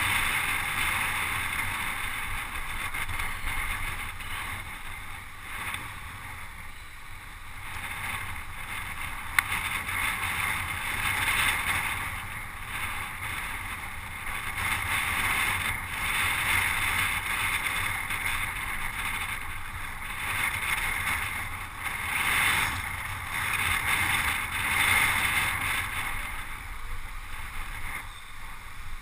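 Wind rushing over the microphone of a camera mounted on a road bicycle riding at speed, over a steady low road rumble; the rush swells and fades every few seconds. A single sharp click about nine seconds in.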